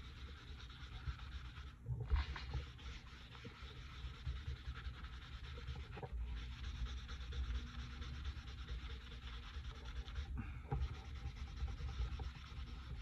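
A folded paper towel rubs back and forth over charcoal-toned drawing paper, smudging the charcoal layer into a smooth middle tone. The scratchy rubbing breaks off briefly three times.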